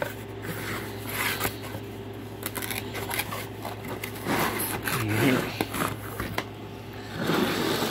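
Cardboard box being handled and opened, with repeated scraping and rustling as a plastic bean bag toss target is slid out of it. A steady low hum runs underneath.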